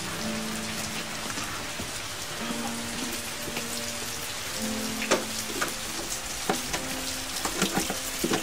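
Steady rain falling, with sharp, close drips landing among it that come thicker about five seconds in.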